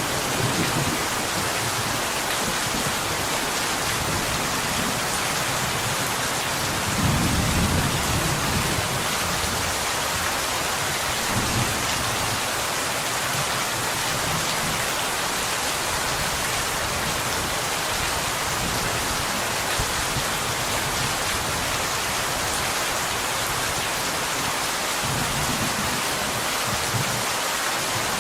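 Steady rain falling on a window glass, an even dense hiss, with a few soft low rumbles of distant thunder, the strongest about seven seconds in.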